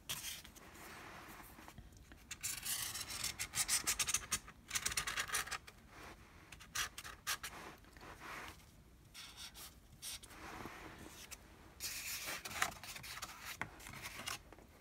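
Felt-tip marker rubbing and scratching as it is traced around the edge of an oval cardboard template onto sheet metal, in several strokes with short pauses between them.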